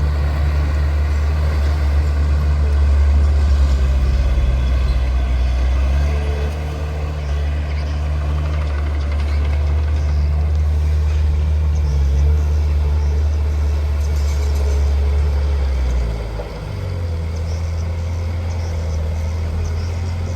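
Heavy diesel engine of earthmoving machinery running steadily with a deep drone. Near the end it briefly drops in level and pitch, then settles again.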